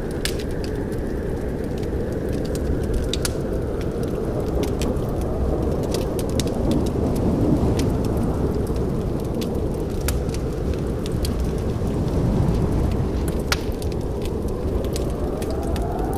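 Wood fire crackling, with scattered sharp pops and snaps over a steady low rumble of the flames. A faint tone slides up near the end.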